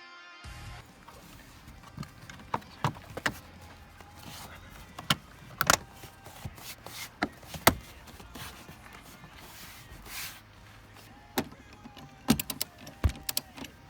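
Irregular clicks and knocks of seat-belt and car interior parts being handled and fitted, over a low steady hum.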